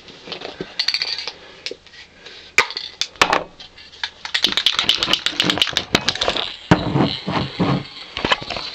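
Krylon gloss clear-coat spray can shaken so the mixing ball rattles inside: a fast run of metallic clicks about halfway through, with scattered knocks and clicks of the can being handled before and after.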